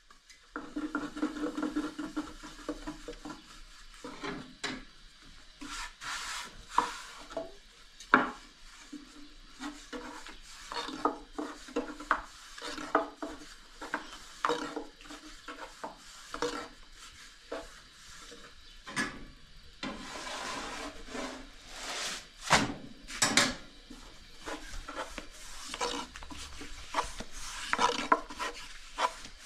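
A long thin wooden rolling pin rolling and rubbing over thin flatbread dough on a round wooden board, with frequent irregular wooden knocks and clacks.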